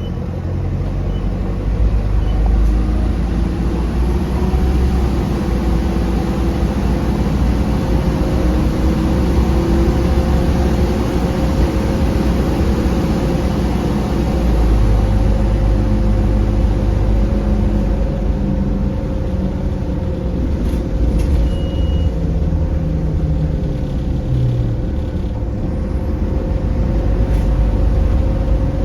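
Optare Solo M900 bus running, with a steady engine rumble under a broad hiss that is strongest in the first half and fades about halfway through.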